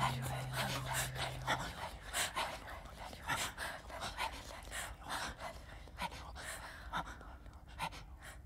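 The final low note of a small string ensemble rings on and dies away about a second and a half in. After it come soft breaths and small scattered clicks and rustles of instruments being held still.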